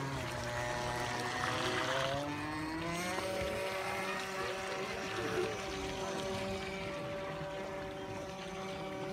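Radio-controlled model boat's motor whining. Its pitch rises over the first three seconds as it speeds up, then holds steady.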